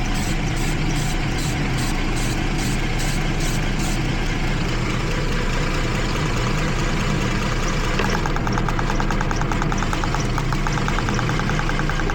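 The 3.5-litre V6 of a 2012 Jeep Liberty idles with dead misfires on cylinders 1 and 5 while its ignition sparks snap audibly. For the first few seconds a slow, regular tick comes about three times a second. From about eight seconds in it changes to a fast, steady ticking from a coil firing every time.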